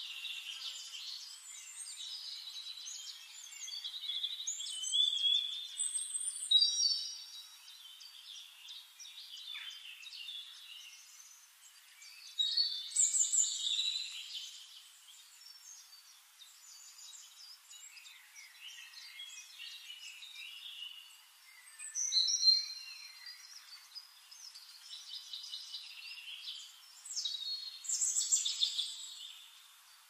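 Songbirds singing: a busy string of chirps, trills and short whistled phrases, with louder phrases every few seconds.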